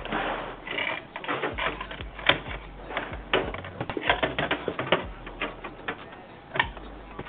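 Irregular hard clicks and knocks of PC parts being handled and fitted inside a computer case. There is a sharper knock about two seconds in and a quick run of clicks around the four-to-five-second mark.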